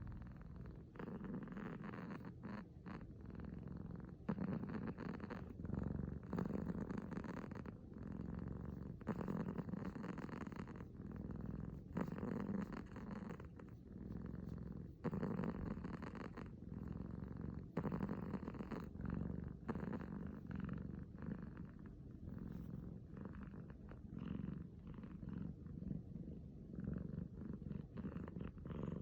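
Six-month-old kitten purring: a continuous low rumble that swells and eases every two to three seconds with its breathing. The owner is not sure whether it is purring or snoring.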